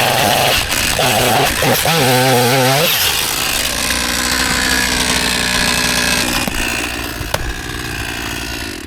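Chainsaw cutting into thick lake ice. For the first few seconds the engine's pitch wavers up and down under load; then it runs steadier before dropping off.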